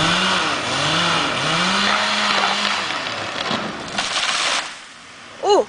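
Chainsaw running and cutting, its pitch rising and falling several times, then cutting off about five seconds in. A brief high-pitched cry follows near the end.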